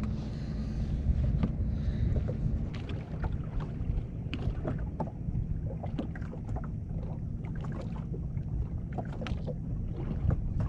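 Wind buffeting the microphone over small waves lapping at the boat hull, a steady low rumble. Scattered light clicks and knocks run through it.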